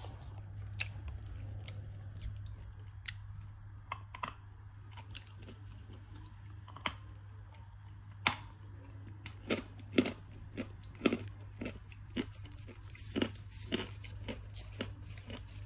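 A person biting and chewing a hard chunk of white edible clay: a string of dry, sharp crunches, scattered at first and coming about every half second in the second half. A steady low hum runs underneath.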